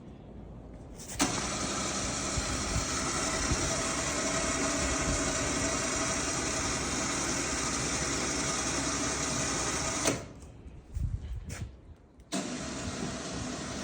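Electric winch on a CFMoto utility vehicle running, reeling in its line through a pulley to snug it up against the load. It switches on abruptly about a second in, runs steadily for about nine seconds, stops, and runs again near the end.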